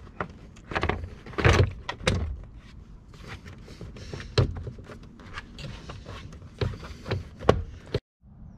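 Hard plastic steering-column trim on a Ford Transit being pushed and snapped back into place by hand: irregular clicks, knocks and scraping of the plastic panels. The clatter stops abruptly near the end, leaving a faint steady hiss.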